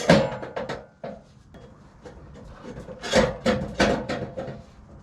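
Rough wood scraping and rubbing against wood, with knocks, in two short bouts: one at the start and one about three seconds in, the sound of freshly sawn lumber being handled.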